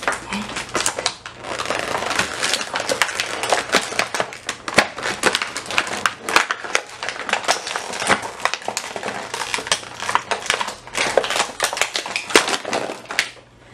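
Stiff clear plastic toy packaging crackling and crinkling as a doll is pulled out of its box, a continuous run of sharp irregular clicks and crackles.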